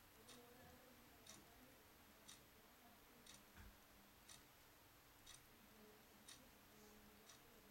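Near silence: faint room tone with a soft, sharp tick about once a second, evenly spaced like a clock, and one dull low thump midway.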